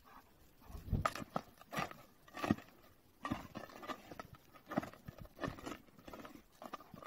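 German shepherd's paws crunching in packed snow as it walks and moves about, an uneven series of soft crunches and thumps.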